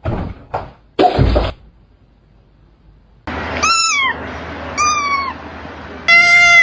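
Domestic cat meowing twice: two short meows falling in pitch, about a second apart. They follow a couple of sharp noisy bursts, and near the end a loud, steady high-pitched call begins.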